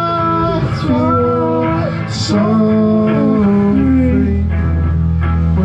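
A live band playing a song, with a voice singing long held notes over guitar; a sustained low bass note comes in about four seconds in.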